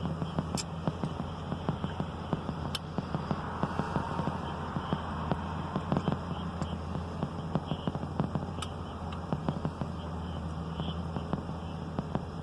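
A car's engine idling with a steady low hum, heard inside the cabin, with many small irregular clicks and crackles over it.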